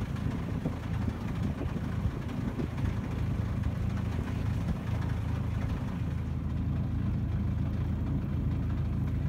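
Boat engine running steadily: a low, even rumble with wind and water noise over it.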